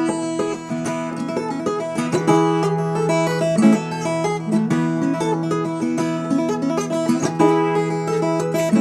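Background music: quick picked acoustic guitar or banjo over a steady held bass note.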